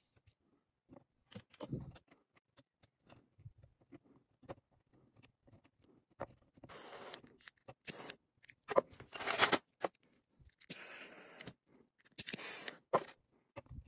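Small clicks and scrapes from wires and plastic parts being handled during soldering, then four short rasping, hissy noises in the second half.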